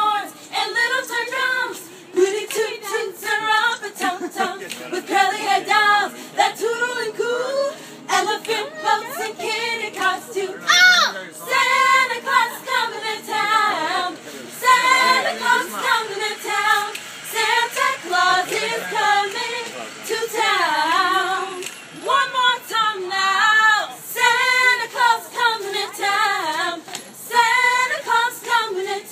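A group of girls singing a cappella, several voices together with no instruments.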